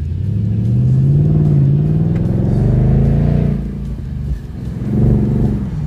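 2022 Ford Mustang GT's 5-liter V8 accelerating, its engine note climbing for about three and a half seconds, then dropping away and climbing again near the end.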